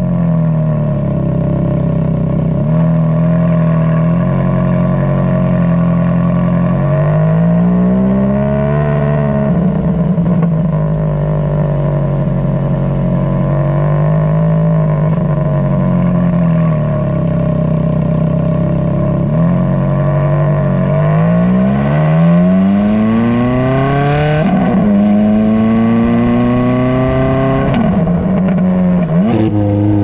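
Exhaust note of a 2005 Ferrari F430 Spider's 4.3-litre V8, stock exhaust with Fabspeed headers, heard right at the tailpipes while driving. The revs rise and fall several times; in the second half two long climbs each end in a sudden drop in pitch, as at an upshift under acceleration.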